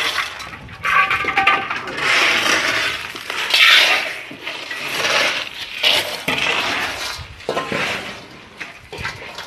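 Crushed stone aggregate being shovelled up off a concrete floor and tipped: scraping and stones clattering in irregular strokes.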